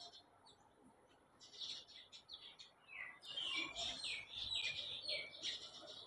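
A chorus of many small birds chirping over one another in short, high calls, sparrows among them. It is sparse at first and busier from about halfway through.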